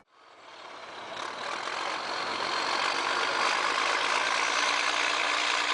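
Heavy diesel earthmoving machinery working: a Caterpillar 621B scraper and a Caterpillar D8N crawler dozer. The steady engine noise fades in over the first couple of seconds, then holds.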